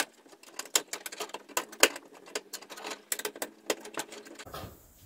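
Irregular small clicks and taps of hands pressing grommets into the knockout holes at the bottom of a solar charge controller's wiring compartment.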